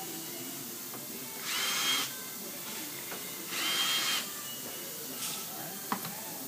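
Cordless drill-driver running in two short bursts, about a second and a half and about four seconds in, its whine falling away as each burst ends, as it backs out the 7 mm screws holding the front grille on. A couple of light clicks near the end.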